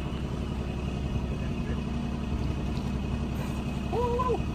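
Boat engine running steadily, with water noise over it. About four seconds in there is one short pitched call that rises and falls.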